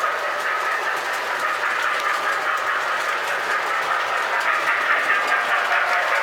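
Toy electric trains running on three-rail track: a steady rolling rumble from the wheels and motors, with faint clicking over the rail joints.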